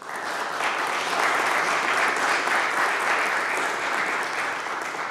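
Audience applauding at the end of a lecture, starting suddenly and keeping up steadily.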